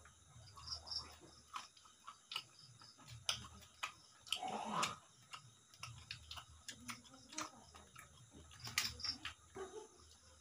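Faint sounds of eating by hand: scattered light clicks and taps of fingers working rice and curry on a steel plate. About four and a half seconds in, one short sound falls in pitch.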